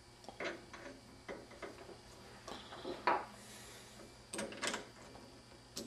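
Scattered light clicks and small knocks of a drill press chuck being handled and closed by hand on a thin steel music wire, the plainest about three seconds in; the drill press motor is not running.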